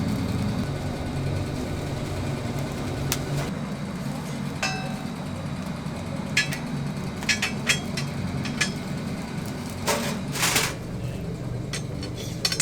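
A steady low hum with scattered sharp clicks and knocks over it, several close together in the middle and a louder cluster about ten seconds in.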